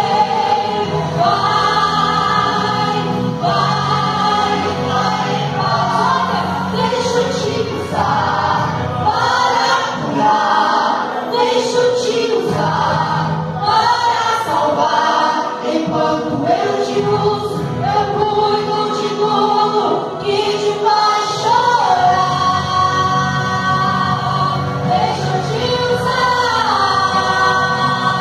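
A vocal trio of soprano, contralto and tenor singing a Portuguese gospel song in harmony through handheld microphones.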